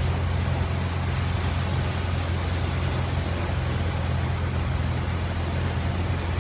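Pickup truck driving through a flooded street, heard from inside the cab: a steady low engine and road hum under an even hiss of the tyres pushing through water.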